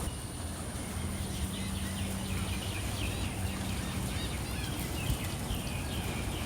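Birds chirping, many short calls in quick succession, over a steady low hum.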